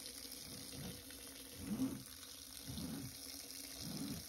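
Faint running water from a shower, used to wash rice in a bucket, with a soft low sound coming back about once a second.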